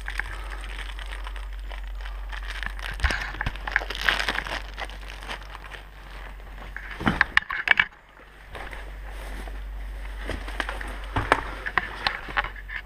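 Rustling and crackling of someone moving about and handling things, with irregular sharp snaps and clicks, thickest about seven seconds in and again near the end, over a steady low rumble that cuts out briefly around eight seconds in.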